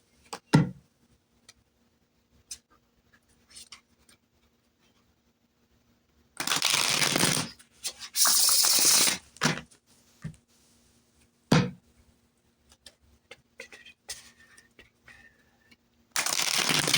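Tarot cards being shuffled by hand, in three brief bursts of about a second each: around six and a half seconds in, again about eight seconds in, and near the end. A few sharp clicks fall in the quiet between them.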